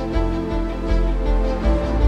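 Background music: held notes over a low beat that pulses about twice a second.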